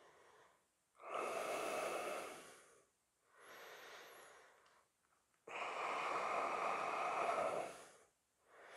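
A person's slow, deep breathing while holding a yoga pose: two long audible breaths of about two seconds each, with a fainter, shorter breath between them.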